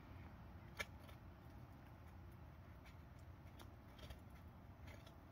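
Near silence: faint outdoor background hum, broken by one sharp click about a second in and a few faint ticks later.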